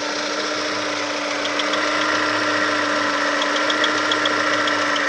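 Chevrolet Lacetti engine idling during warm-up, with a steady thin whistle over the engine note that is put down to the timing-belt tensioner roller. Faint light ticking comes in short runs.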